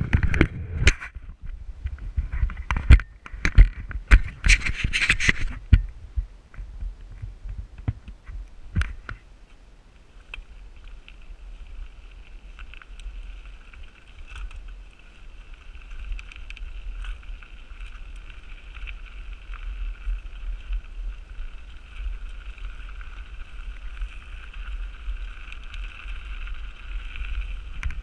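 Mountain bike rattling and knocking over a rough trail at speed, with low wind rumble on the action-camera microphone. The clatter dies down after about nine seconds, leaving the wind rumble and a faint steady high whine.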